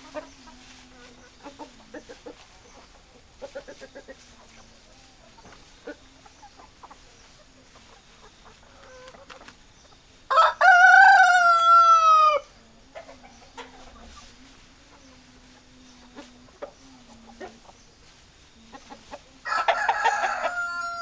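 Chickens: hens clucking softly and sporadically, and a rooster crowing loudly twice, about ten seconds in and again near the end, each crow drawn out and falling in pitch at its close.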